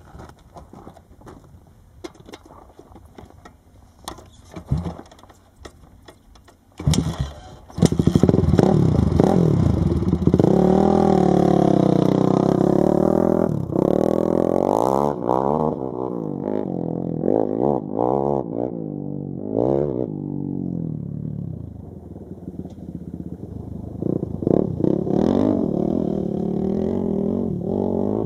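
Quad (ATV) engine starting about seven seconds in after some faint clicking and rattling, then revved up and down several times. It drops back to a lower idle, then is blipped again near the end.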